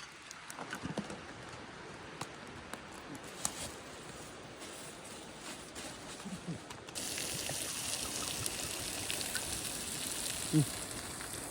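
Scattered small crackles and ticks, then, from an abrupt cut about seven seconds in, a steady hiss of food sizzling over a campfire.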